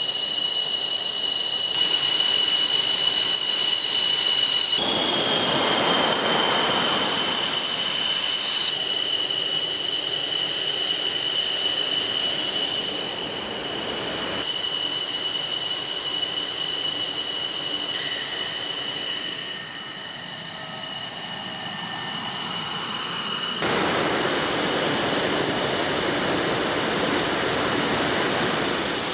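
Fighter jet engines with a steady high-pitched turbine whine over a rushing roar. The sound changes abruptly several times as the footage cuts between shots, and the pitch falls slightly once.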